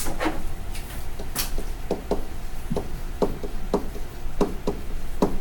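Stylus tapping and clicking against a touchscreen while writing numbers by hand: about a dozen short, irregular taps, one per pen stroke, over a steady low electrical hum.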